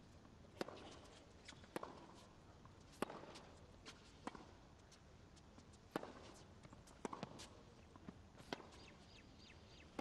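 Tennis rally on a hard court: the ball struck by the rackets and bouncing, a sharp pock about every second or so.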